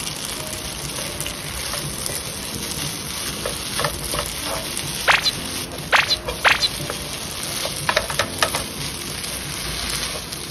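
Pad thai noodles and bean sprouts sizzling in a nonstick pan as they are stir-fried with a wooden spatula. Several sharp knocks and scrapes of the spatula against the pan come around the middle.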